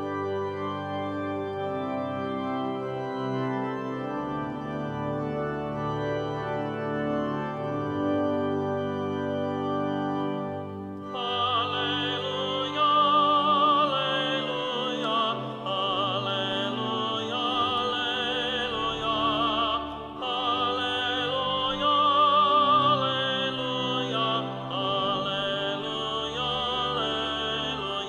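An organ plays held chords as a slow introduction. About eleven seconds in, a solo singer enters with strong vibrato over the organ, as sung at Mass between the readings and the Gospel.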